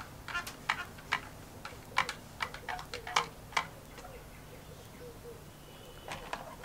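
Light metallic clicks and clinks of thin wire hangers and small metal parts knocking against a metal rod and a plastic tub as they are handled and lifted out of a bath. There are a dozen or so quick, irregular ticks in the first few seconds, a quiet gap, then a few more near the end.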